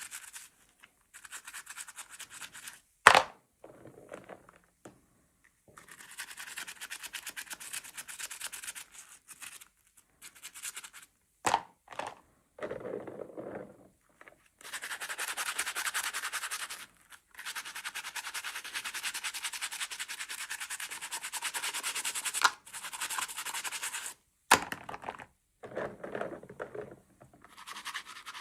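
Scratching, rubbing and rustling of plastic toy packaging being handled and opened, broken by a few sharp clicks or snaps.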